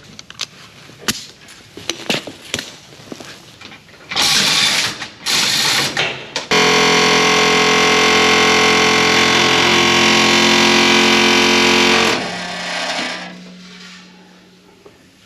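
Pneumatic air chisel hammering on welded steel tubing: a few knocks as it is set against the metal, two short bursts, then a steady run of about five seconds that stops abruptly. It is slowly cutting into the tubing around a gearbox's splined shaft.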